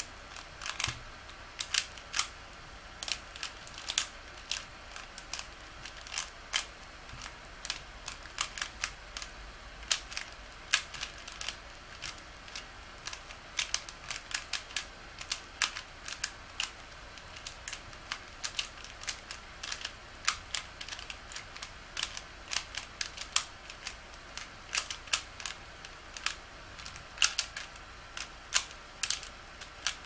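Plastic 3x3x3 Rubik's Cube being turned fast by hand in a speedsolve: the layers clack in quick, irregular runs of turns with brief pauses between them.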